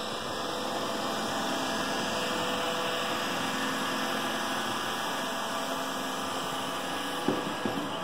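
Roomba robot vacuum running: a steady motor and brush whir, with a couple of sharp knocks near the end.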